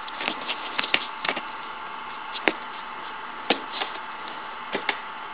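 Scattered light clicks and taps of fingers handling and pressing HO scale model railroad track (a double crossover) into place, over a faint steady hum.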